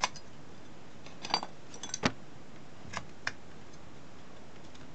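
Short sharp clicks and taps of a circuit board and its aluminium heatsink plates being handled and set in place, scattered over the first few seconds. The loudest come at the very start and about two seconds in.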